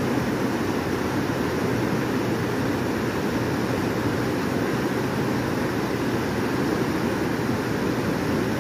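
Fast-flowing river rapids rushing steadily.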